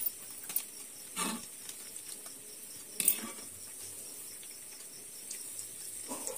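Sweet rice-flour and jaggery rotis frying in hot oil in a kadai: a steady sizzle, with a few short clinks and knocks of the metal slotted ladle against the pan.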